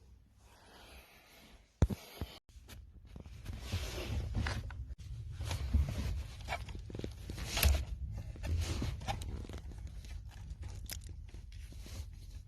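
Rustling, scraping and knocking handling sounds over a low rumble, with a sharp click about two seconds in.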